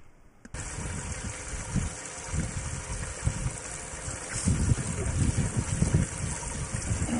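Wind buffeting a camera microphone in irregular low gusts over a steady hiss, starting abruptly about half a second in.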